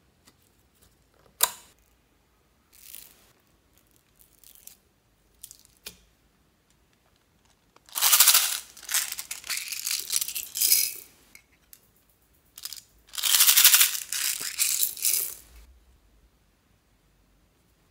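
Small plastic beads rattling out of a plastic case and scattering onto slime, in two pours of two to three seconds each, the second starting about five seconds after the first. A few faint clicks and taps come before the first pour.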